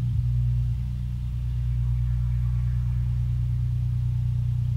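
Ambient electronic music: a sustained low synthesizer drone with a fast flutter, and faint high tones drifting above it.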